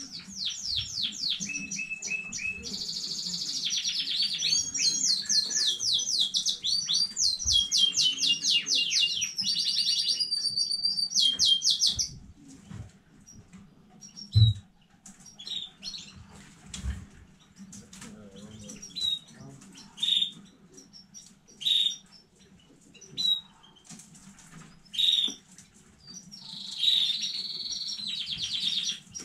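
Domestic canary singing: a long run of rapid trilled phrases, each a fast string of repeated notes, then short single chirps about every second and a half, and another trill near the end. A single thump about halfway through.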